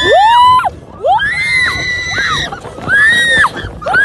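Several roller coaster riders screaming together: high, overlapping shrieks that rise and fall, in three long bursts with short breaks between.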